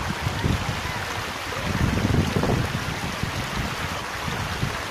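Shallow sea water washing and swirling over a rocky shelf, with wind rumbling on the microphone.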